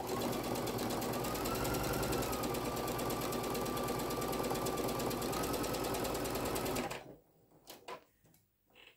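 Brother Innovis NQ3700D home sewing machine running steadily, top-stitching along a seam of a fabric cap crown, its motor whine and rapid needle strokes stopping abruptly about seven seconds in. A few faint handling clicks follow.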